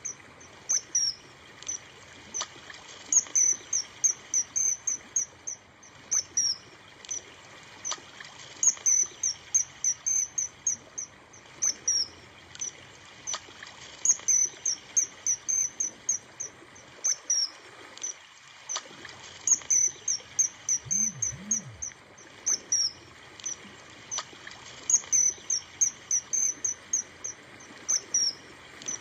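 Runs of short, high-pitched chirps, about six to ten at a time at roughly four a second, repeating every two to three seconds over a faint steady hiss.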